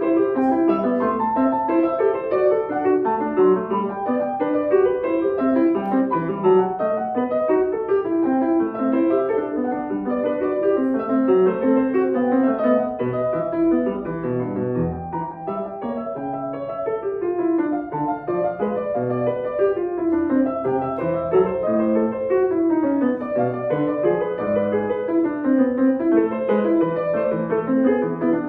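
Steinway & Sons grand piano played continuously in quick runs of notes over broken chords. About halfway through, a run falls into the bass and climbs back up.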